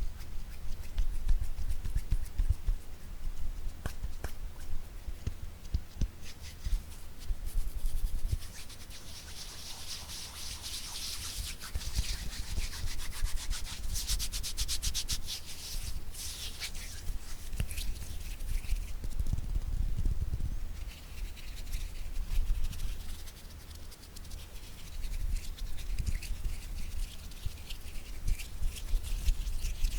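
Close-miked hand tapping and rubbing: rapid soft fingertip taps over low dull thumps, with a stretch of hissy rubbing from about nine to fifteen seconds in.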